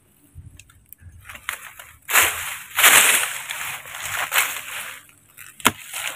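A metal shovel digging into dry soil and roots: several loud scraping strokes from about two seconds in, and a sharp click near the end.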